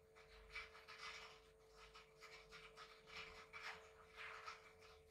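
Faint, uneven trickle of pandan custard batter being poured slowly from a metal bowl onto the glutinous rice layer in a steamer, over a faint steady hum.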